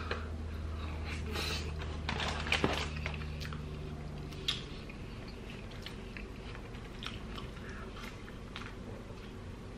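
Close-miked chewing and biting of chili cheese fries dipped in ranch, with wet mouth sounds, busiest in the first three seconds. A steady low background hum stops about halfway through.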